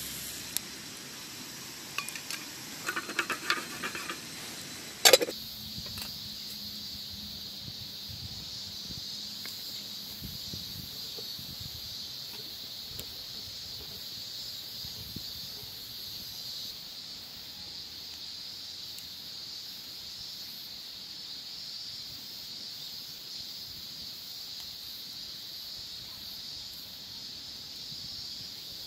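A few light metallic clinks as an aluminium mess tin and its lid are handled. About five seconds in there is a sharp click, then a steady high-pitched hiss.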